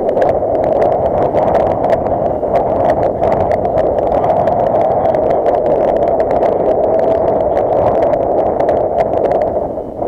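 Strong wind buffeting the microphone: a loud, steady rush of wind noise with frequent crackles.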